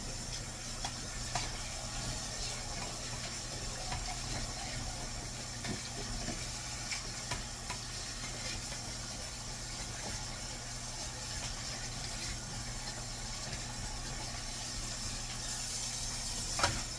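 Steady low hum and hiss with scattered light clicks and taps of kitchen utensils being handled, and a sharper click near the end.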